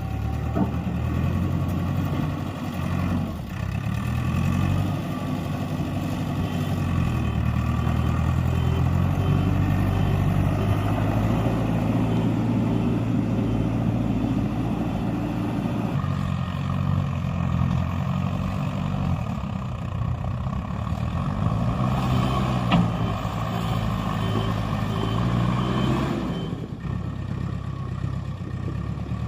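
Heavy diesel engines of construction machinery running and revving up and down under load. A reversing alarm beeps in an even series during two stretches, the first starting a few seconds in and the second near the end.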